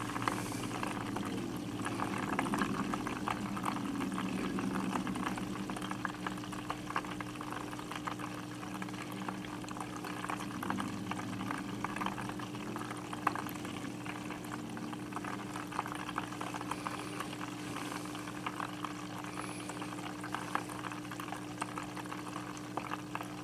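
Fish tank water bubbling and trickling steadily, with a steady low hum underneath.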